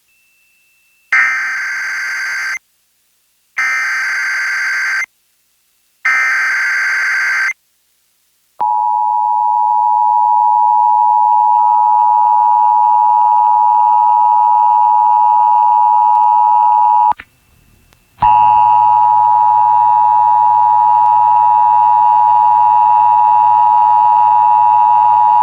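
Emergency Alert System broadcast: three short bursts of SAME header data, a harsh digital screech about a second and a half each with a second's gap between them, then the EAS two-tone attention signal (853 and 960 Hz), held for about eight seconds, breaking off briefly and sounding again for about eight seconds more, heard off a radio.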